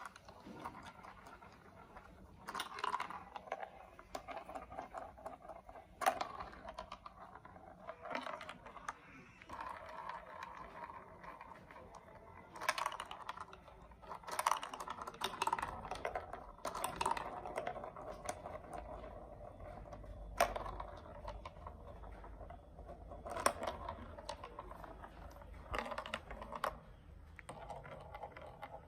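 Small plastic building blocks clicking and clattering as they are handled and snapped together, in irregular clusters of light clicks with a few sharper snaps.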